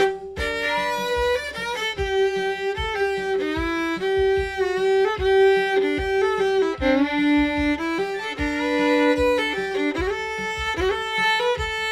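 Fiddle playing a bluegrass melody in G, often sounding two strings at once, note changes moving briskly over a steady backing drum beat about twice a second.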